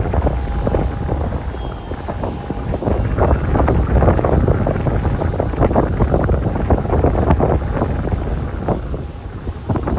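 Strong wind buffeting the microphone: a heavy, gusty rumble that rises and falls, dipping briefly near the end.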